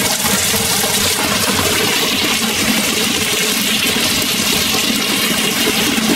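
Hot-spring water pouring from a spout in a concrete pool wall and splashing into the pool, a steady rush of running water.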